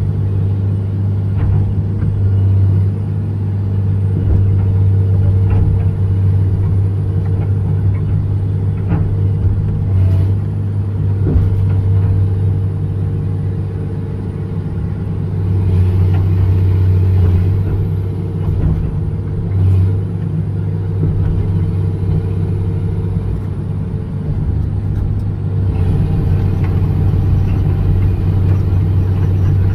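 John Deere 200LC excavator's diesel engine and hydraulics running steadily while the boom and bucket dig, swelling louder twice as the hydraulics take load. A few short knocks of the bucket and linkage.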